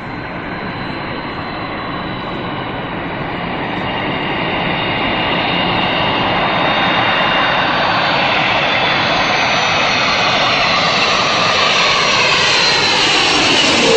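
A fixed-wing airplane's engines run as it approaches, growing steadily louder, with a high whine that slowly falls in pitch.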